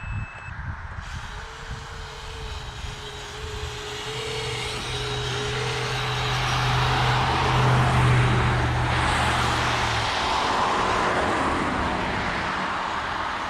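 Kyosho Blizzard 2.0 RC snowcat with brushless motors driving its tracks through snow. The sound swells to its loudest about two-thirds of the way in, then eases, and a low steady hum underneath stops near the end.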